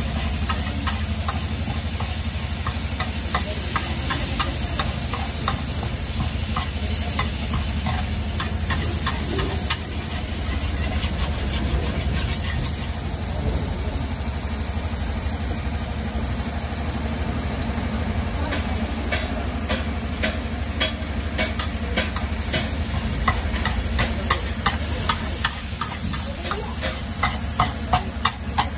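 Metal spatula clicking and scraping on a flat griddle as paneer and peas are chopped and stirred, with steady sizzling from the hot plate. The clicks grow louder and more regular in the second half, about two to three a second near the end, over a steady low hum.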